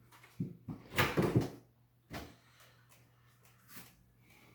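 Kitchen handling noises: a few knocks and clunks, with the loudest cluster about a second in and single knocks about two seconds in and near the end.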